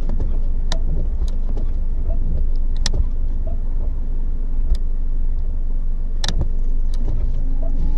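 2005 Chrysler PT Cruiser's four-cylinder engine idling steadily, with a handful of sharp clicks from the wiper and washer controls being worked.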